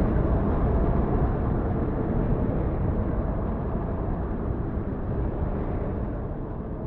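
Loud low rumbling noise that fades gradually over several seconds.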